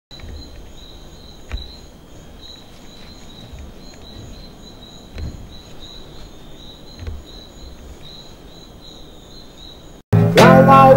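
A steady chorus of insects chirping in rapid pulsing trills, over a low rumble broken by a few soft low thumps. About ten seconds in, it cuts off abruptly and a loud acoustic guitar chord rings out, starting the song.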